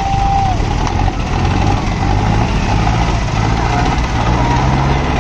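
Two diesel tractor engines running hard under heavy load as they pull against each other in a tug-of-war, a loud, steady deep drone that climbs slightly in pitch near the end.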